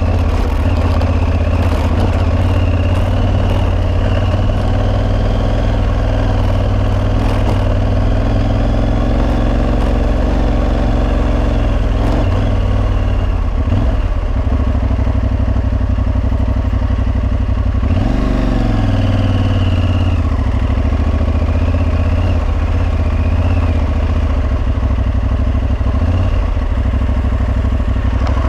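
Aprilia Tuareg 660's parallel-twin engine running steadily on the move. About two-thirds through, the engine pitch briefly climbs and then falls back.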